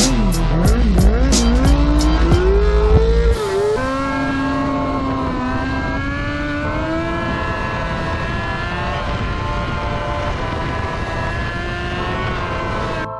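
Motorcycle engine revving up and down repeatedly over a music track's thumping bass, which drops out about three seconds in; the engine then runs on alone, its pitch rising slowly.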